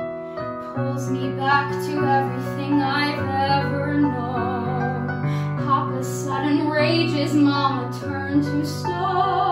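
A woman singing a musical-theatre song over piano accompaniment. Her voice comes in about a second in over sustained piano chords, with a wavering vibrato on the held notes.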